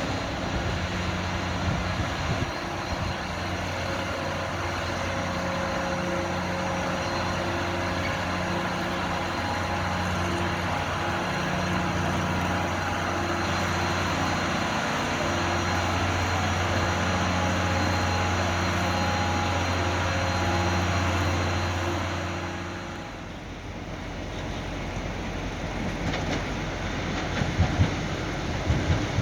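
Diesel train engine running with a steady low drone that drops away about 23 seconds in. A few sharp knocks follow near the end.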